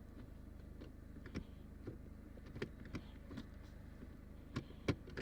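Mercedes-Benz W210's M111 four-cylinder petrol engine idling steadily and smoothly, with several short sharp clicks or knocks on top, the loudest near the end.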